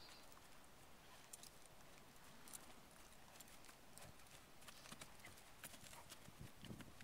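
Faint hoofbeats of a horse moving over dry dirt footing, a scatter of soft clicks.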